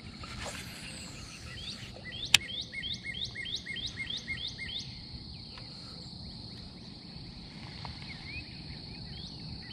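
Outdoor ambience of a steady high-pitched insect drone, with a bird repeating a short rising note about three times a second for a few seconds. A single sharp click stands out about two and a half seconds in.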